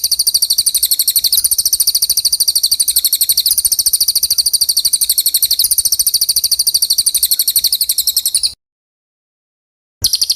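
Recorded high-pitched bird trill made of very fast, evenly repeated pulses. It runs steadily, cuts off abruptly about eight and a half seconds in, and starts again for a moment near the end. This is isian (filler song) audio played to teach white-rumped shamas.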